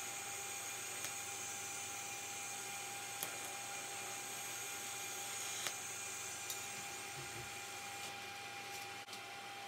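Electric welding arc hissing steadily on sheet steel, then stopping about six and a half seconds in, with a few faint clicks.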